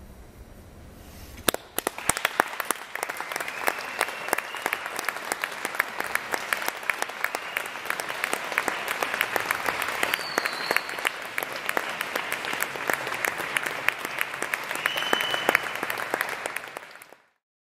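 Audience applause for a chamber ensemble, starting about a second and a half in as dense, steady clapping. It cuts off suddenly near the end.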